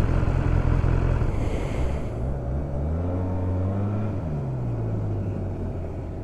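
Vehicle engine running at a steady low idle. About three seconds in, an engine's pitch rises for a second or so, then drops back.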